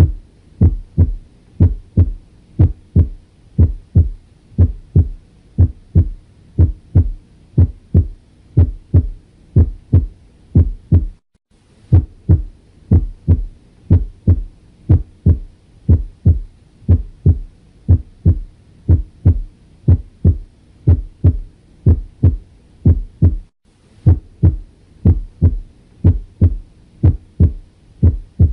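Normal heart sounds heard by stethoscope auscultation: a regular lub-dub, the low first heart sound (S1, from the closing of the mitral and tricuspid valves) followed by the second, a little over once a second. The beating breaks off briefly twice, about 11 and 23 seconds in.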